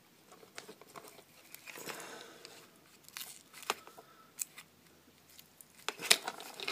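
Faint handling noises of a plastic model car interior tub and thin twisted hookup wire being threaded through small drilled holes: light rustling with a scattering of small clicks and ticks, the sharpest about six seconds in.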